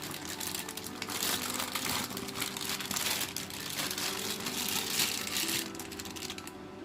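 Packaging crinkling and rustling as the figure is unwrapped, stopping about five and a half seconds in, over faint background music.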